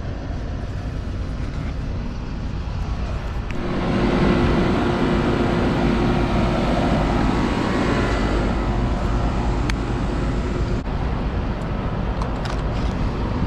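Steady low mechanical rumble. About three and a half seconds in, a louder rushing noise with a steady hum swells up, then drops off sharply about eleven seconds in.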